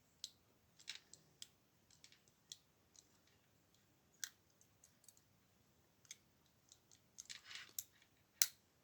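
Faint, irregular metallic clicks and light scraping of a pick wire working the levers of a Belfry two-lever padlock under tension, with a sharper click near the end.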